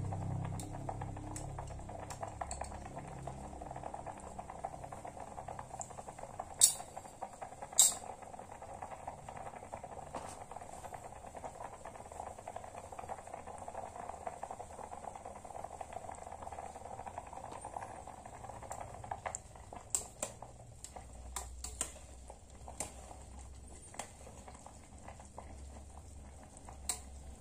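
Pasta water boiling in an enamel camping mug over a portable spirit stove: a steady bubbling. Two sharp clicks come about seven and eight seconds in. Small metallic clicks follow in the second half, ending with a spoon knocking against the mug as it stirs.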